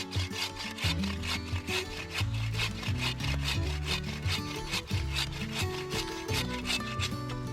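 Hand saw cutting firewood in quick, even back-and-forth strokes, with background music underneath.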